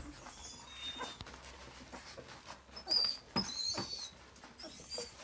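Three-and-a-half-week-old Vizsla puppies nursing and giving a few short, high-pitched squeaks and whimpers, the clearest about three to four seconds in.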